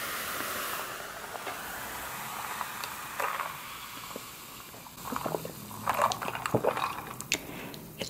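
A drink pouring into a metal mug, hissing steadily and stopping under a second in. Then a short sip through a straw, and a run of short sipping and mouth sounds in the second half.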